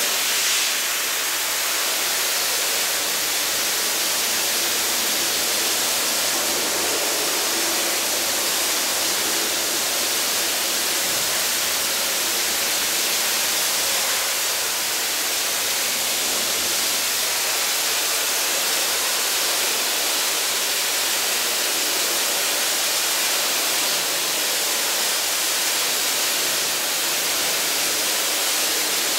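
Media blaster nozzle hissing steadily as its abrasive stream strips paint off the steel sheet metal of a 1965 Chevy C-10 down to bare metal.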